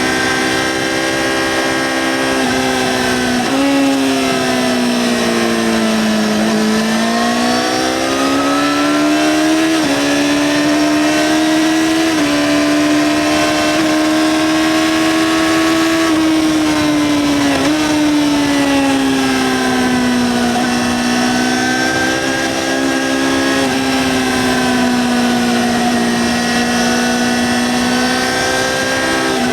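Yamaha XJ6-N's 600 cc inline-four running through its stock exhaust while riding. The engine note falls and climbs several times with the throttle and jumps abruptly a few times, at about 3.5, 10, 12 and 17.5 seconds in.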